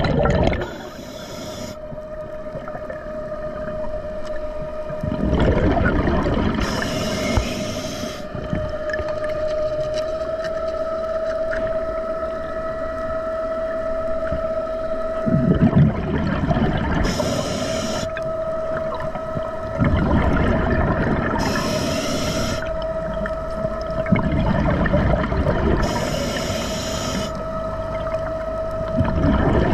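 Underwater, a diver propulsion scooter's electric motor runs with a steady whine. Several times the diver breathes through a scuba regulator: a rush of exhaled bubbles, then a short high hiss of inhalation.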